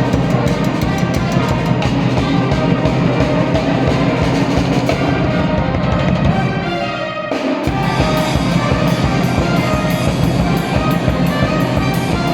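Energetic background music with a fast, steady drum beat; about seven seconds in it thins out with a short rising sweep, then the full beat comes back.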